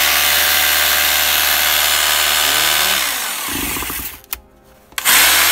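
Vitals rotary hammer's electric motor running at full speed in forward rotation, released about three seconds in so that it spins down, then started again near the end. A test run after repair, with newly fitted parts bedding in.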